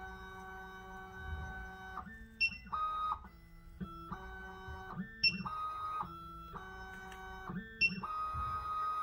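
SEC-E9 computerised key-cutting machine running its cutting program on a car key blank. Its motors whine at steady pitches that jump up and down in steps as the head moves from one position to the next. A short high chirp comes three times.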